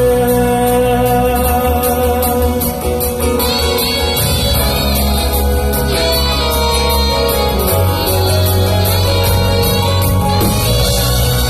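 Live band playing a city-pop song, recorded from the audience: singing over acoustic guitar, electric guitar, bass and drums, with a steady cymbal beat.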